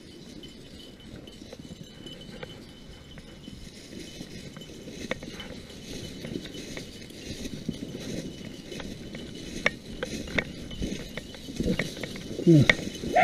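Footsteps through dry brush, with irregular crackles and snaps that get louder and more frequent toward the end.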